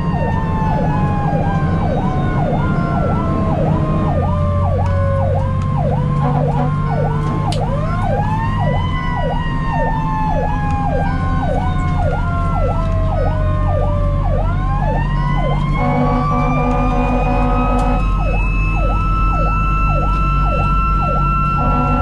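A fire engine's sirens heard from inside its cab, over the low rumble of its diesel engine. An electronic siren yelps quickly, about twice a second, while a second, slower wailing siren falls, winds back up twice, and holds a high pitch near the end. Horn blasts sound briefly twice in the last few seconds.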